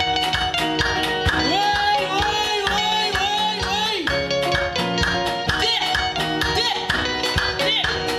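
Band music with guitar over a steady drum beat, with a voice singing drawn-out, wavering notes twice.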